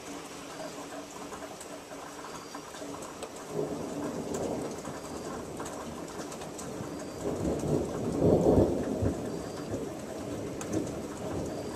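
Thunder rumbling, building from about three and a half seconds in, loudest about eight seconds in, then dying away, over a steady hiss of rain.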